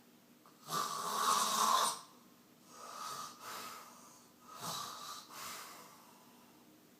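A sleeping man snoring: one loud snore lasting over a second, about a second in, then two softer snores about two seconds apart.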